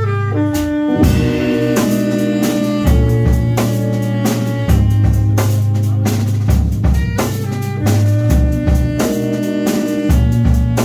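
Live band playing instrumental music on drum kit, electric guitars, saxophone and keyboard. It opens with a quick descending run of notes, and the drums come in about a second in with a steady beat over a sustained low bass.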